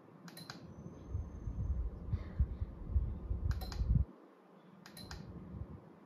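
Sharp double clicks, three times about a second and a half apart, as the fan's light is switched from one colour setting to the next. Under the first two, a low rumble that cuts off suddenly about four seconds in.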